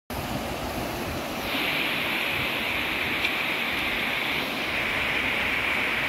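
Shallow river rushing over rocks and small rapids: a steady rushing noise. There is a single brief tick about three seconds in.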